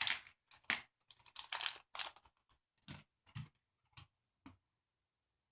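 Small plastic Mega Bloks building pieces clicking and clattering as they are handled and pressed together: an irregular run of sharp clicks that stops about four and a half seconds in.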